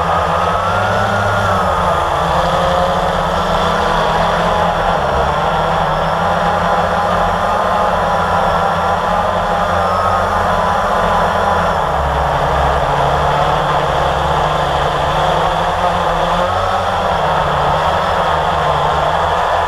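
Blade 350 QX quadcopter's four brushless motors and propellers whining in flight, several tones drifting up and down together as the throttle changes, over a steady low rumble.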